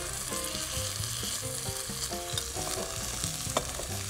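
Fillet steaks sizzling steadily as they sear in a very hot oiled frying pan, with mushrooms frying in butter in a second pan. There is a sharp click about three and a half seconds in.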